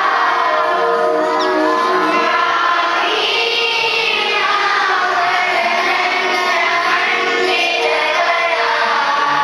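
Many children's voices singing together in chorus over steady accompanying music.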